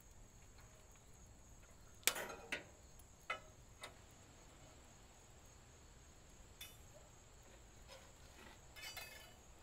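Metal tongs and hanging wire clinking and tapping against a cast-iron Dutch oven and grill grate. A sharp clink about two seconds in is the loudest, followed by a few softer taps, and a short cluster of clinks near the end.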